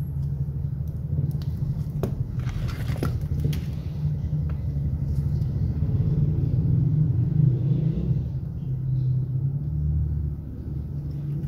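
Steady low hum, with a few faint clicks about two to three seconds in.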